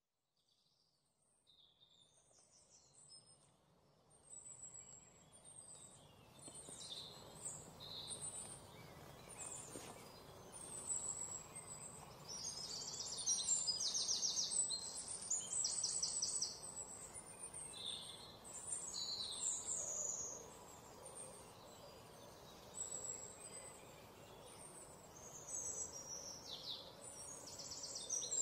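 Small birds chirping, with now and then a short rapid trill, over a faint steady outdoor hiss; the sound fades in over the first few seconds.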